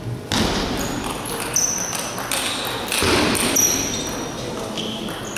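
Table tennis rally: the ball clicking sharply off the bats and the table, several hits in a row about one every second or less, some with a short high ping, over the murmur of a hall crowd.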